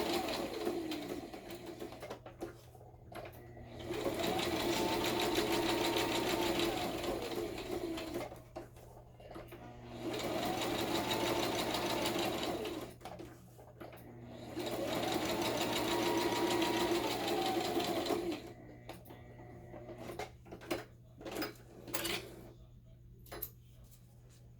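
Electric sewing machine running a straight stitch in four short runs of a few seconds each, the motor speeding up and then slowing down in each run, with brief pauses between. After the last run, near the end, only light clicks of handling the machine and fabric.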